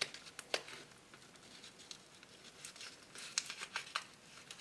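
Paper liner being peeled off adhesive vinyl that is stuck to clear plastic transfer tape: faint crackling and rustling of paper and plastic, with a few sharper ticks about half a second in and again between three and four seconds in.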